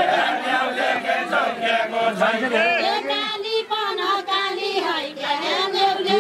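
A group of voices singing a Deuda folk song together in a chanted, unaccompanied melody.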